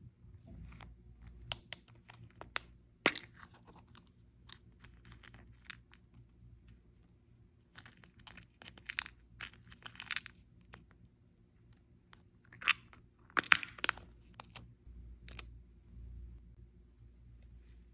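Paper and craft materials being handled for a journal page: irregular rustling and crinkling, with short tearing sounds and sharp clicks or taps scattered through.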